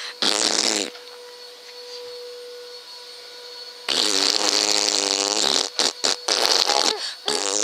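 Loud fart-like sound effects: one short burst near the start, a long one of nearly two seconds about four seconds in, then a few quick short ones near the end.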